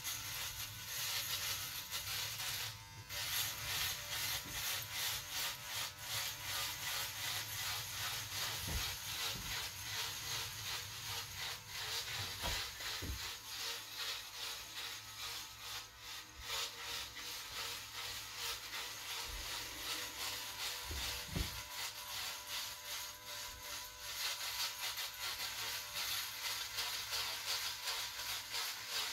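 Cordless electric hair trimmer buzzing as it is run close over a shaved scalp, its blades rubbing against the skin, with a few soft knocks as it is handled.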